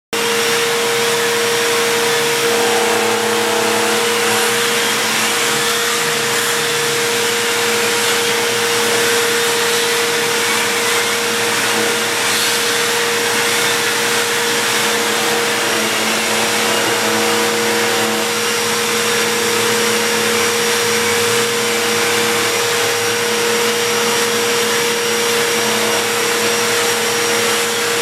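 Bissell CleanView Helix Deluxe upright vacuum cleaner running steadily under test: a constant motor whine over an even rushing hiss of air.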